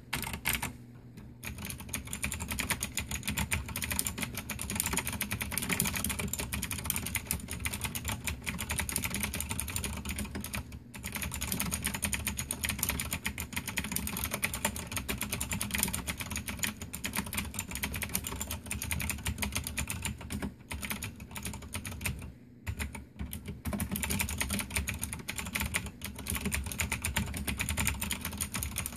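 Cherry G80-3497 mechanical keyboard with Cherry MX Blue clicky switches being typed on quickly and continuously: a dense stream of sharp key clicks, broken by a few short pauses.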